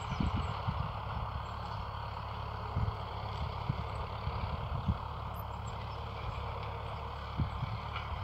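Tractor engine running steadily, with irregular low thumps over it.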